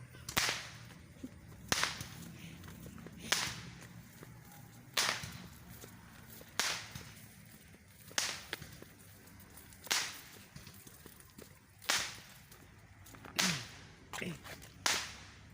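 Slow, regular swishing steps, one about every one and a half to two seconds, each a short sharp swish.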